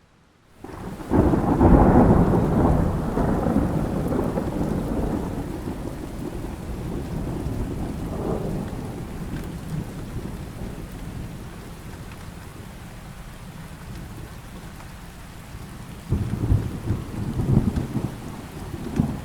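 Thunderstorm with steady rain. Out of near silence, a loud thunderclap breaks under a second in and rolls and fades over several seconds, a smaller rumble comes near the middle, and another roll of thunder with crackles builds near the end.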